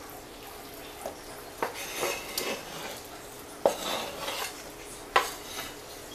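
A kitchen knife scraping chopped boiled beef tongue off a wooden cutting board into a pan, with three sharp knocks about one and a half, three and a half, and five seconds in, and short scraping between them.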